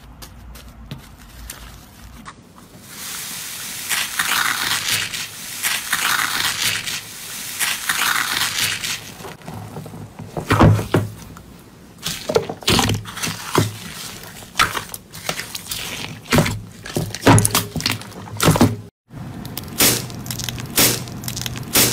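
Hands squishing and kneading slime: a soft crackling hiss at first, then from about ten seconds in a run of sharp pops and squelches as the slime is pressed and squeezed.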